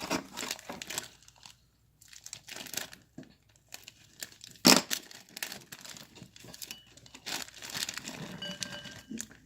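Plastic packaging crinkling as the packet of hard toy slime noodles is handled and opened: irregular rustles, with one loud sharp crackle about halfway through.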